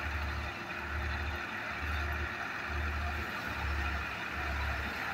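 Tractor-driven paddy thresher running steadily while paddy bundles are fed into it, the machine's noise over the New Holland tractor's diesel engine, with a low throb repeating about once a second.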